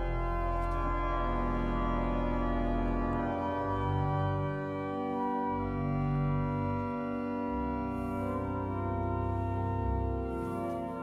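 Electronic church organ playing sampled pipe-organ sounds: held chords that change every second or two over deep bass notes. It is heard through loudspeakers in a large church.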